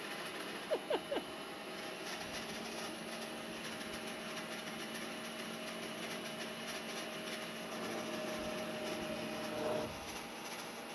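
Vacuum cleaner running with a steady mechanical whir, and a hum over it that cuts off suddenly near the end. Three short high squeaks come about a second in.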